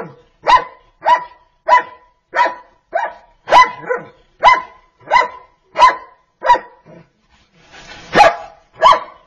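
Dog barking over and over, one short sharp bark about every two-thirds of a second, then a brief pause before two louder barks near the end.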